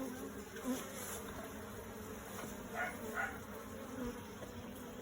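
Swarm of honeybees buzzing around an open hive, a steady wavering hum with many wingbeats overlapping. The colony is very buzzy, which is taken as a sign that it was upset by someone standing in front of the hive entrance.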